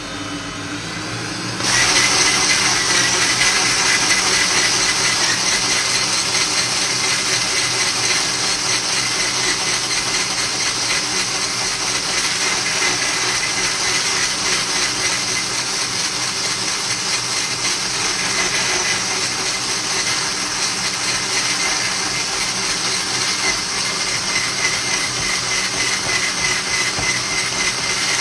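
Bosch hand blender with a whisk attachment switching on about two seconds in and running steadily with a high whine as it beats egg yolks and sugar in a plastic jug.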